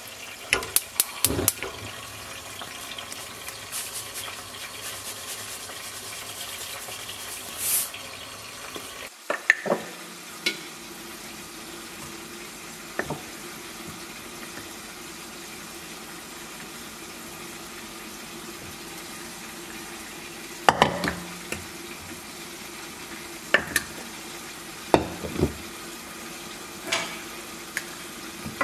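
Cooking sounds: a steady sizzling hiss from the stove, with clusters of sharp clinks and knocks of utensils and pots, most of them in the first couple of seconds and a few more later on.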